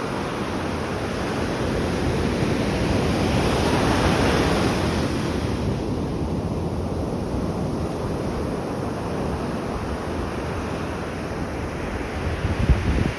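Atlantic Ocean waves washing in, swelling to a peak about four seconds in and then easing off, with wind buffeting the microphone in low gusts near the end.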